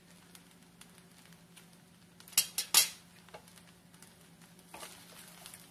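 Utensils knocking and scraping against a stainless steel pan while fried rice is stirred. There are three sharp knocks close together about two and a half seconds in, then softer scraping near the end.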